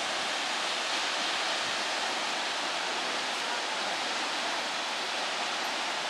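High waterfall in full flow, two streams plunging over a rock cliff into a pool: a steady, even rushing hiss of falling water.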